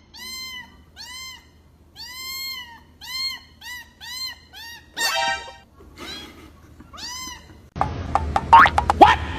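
A cat meowing over and over: about a dozen short, high meows, each rising and falling in pitch, with a louder, harsher one about five seconds in.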